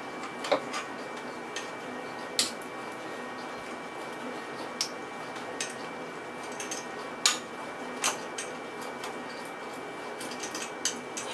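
Plastic Duplo bricks clicking and knocking as they are handled and pressed onto a stacked tower: about eight sharp clicks spaced irregularly, a second or more apart.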